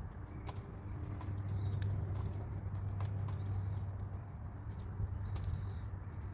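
Light clicks and taps of a replacement engine part and hand tools being handled, over a steady low hum.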